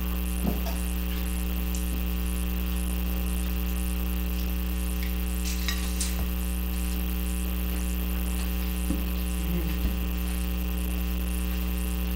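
Steady electrical mains hum in the recording: a low buzz with a stack of higher overtones. Over it come a few faint, soft rustles and clicks as a pink concha (Mexican sweet bread) is pulled apart by hand.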